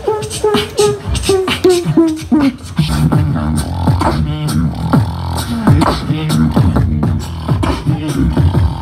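Live beatboxing amplified through microphones: a fast beat of mouth-made kick and snare clicks. For the first couple of seconds it carries a run of short, slightly falling pitched notes, about two and a half a second, then turns to a low bass pattern under the clicks.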